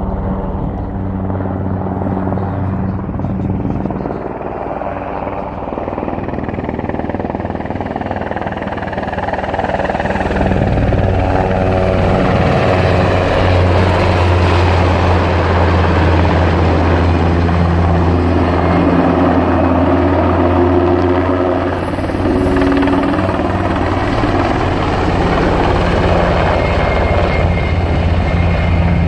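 KAI Surion firefighting helicopter flying, its rotor and turbine drone running steadily with a strong low hum. It grows louder about a third of the way in and stays loud, with a brief dip near the end.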